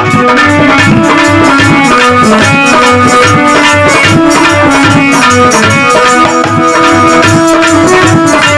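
Instrumental interlude of a Hindi devotional bhajan: a held, stepping melody line over a steady hand-drum beat with quick percussive ticks.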